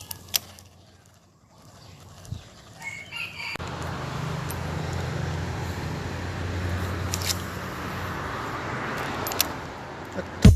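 A rooster crowing, with a steady low rumbling noise and hum that sets in about a third of the way through and runs on most of the rest.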